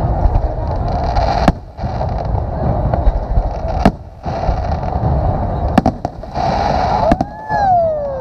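Aerial fireworks going off: a steady rumble and crackle, broken by several sharp bangs, with a falling whistle near the end.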